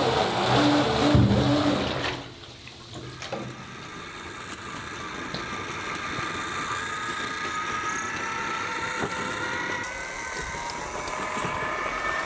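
The 5000 W electric motor of an RC jet boat drives its water jet, whining and churning the bathtub water. About two seconds in the throttle drops, and quieter water churning goes on with a faint whine slowly rising in pitch.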